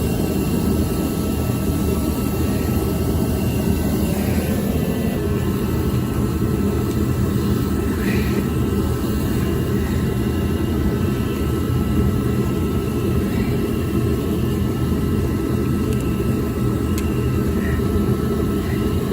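Steady roar of a torpedo (forced-air) heater's fan and burner, with a few faint clicks and knocks of hand work.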